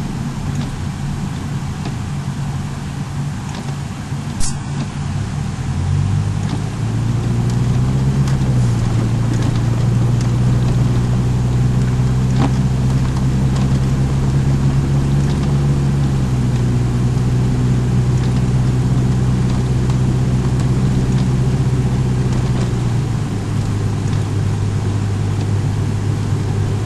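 Car being driven: steady engine and road noise, with the engine note rising about six to eight seconds in, holding, and dropping again near the end. A single sharp click about four and a half seconds in.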